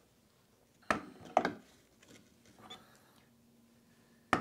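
Knocks and clunks of a rusty steel strut top mount being handled and set onto a shock and coil spring held in a spring compressor: two knocks about a second in, a faint one later, and a sharper knock near the end.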